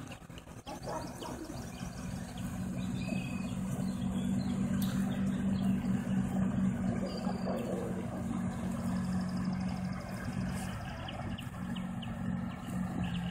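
Outboard motor of a passing pontoon boat running steadily, a low even hum that swells toward the middle and eases off again.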